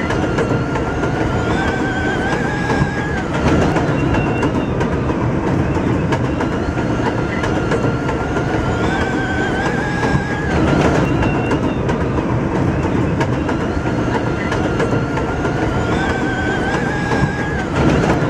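New York City subway train on the 7 line rolling at speed along elevated steel track, with a steady rumble and clatter of wheels on rail. A high whine steps up in pitch and then cuts off, about every seven seconds, and a brief louder rumble follows each time.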